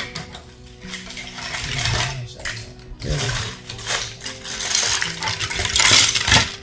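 Chunks of dry agarwood clattering and knocking against each other as hands rummage through a heaped pile and lift pieces out, in several bursts, loudest near the end.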